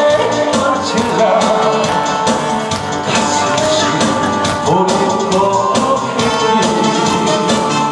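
A man sings a Korean trot song into a handheld microphone over an amplified backing track with a steady drum beat.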